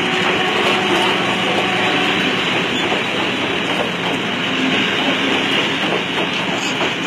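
Crowded passenger train rolling past along the platform: a steady noise of coach wheels on the rails. A few faint steady tones fade out about two seconds in.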